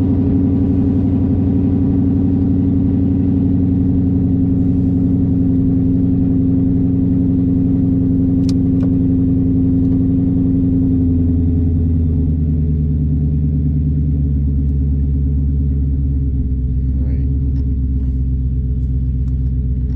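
Ford Mustang Boss 302's 5.0-litre V8 running steadily through aftermarket side pipes, heard inside the cabin with the windows up. Its note steps down to a lower pitch about halfway through.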